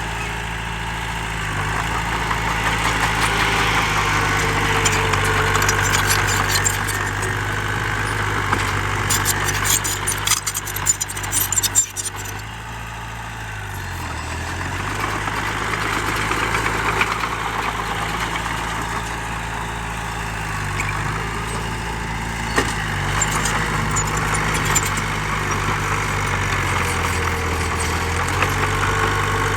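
Heavy diesel engine of earthmoving machinery running steadily, its speed dipping and picking up again a few times. A burst of rattling and clanking comes about ten seconds in.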